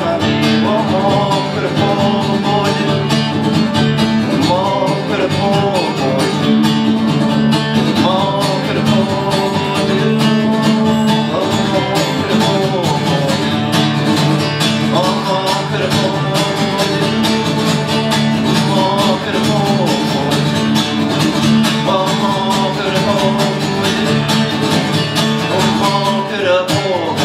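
Live acoustic bluegrass band playing: two acoustic guitars strummed, a banjo picked and an upright bass, with a man singing lead over them.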